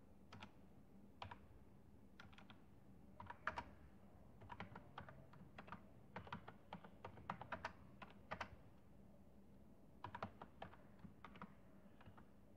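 Faint computer keyboard typing: quick clusters of key clicks with short pauses between them.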